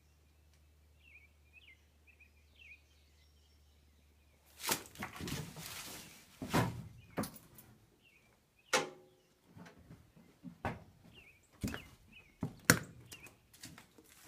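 Faint bird chirps, then about five seconds in a wooden barn door is dragged shut with a scrape lasting over a second. A string of sharp, irregular knocks and thuds follows.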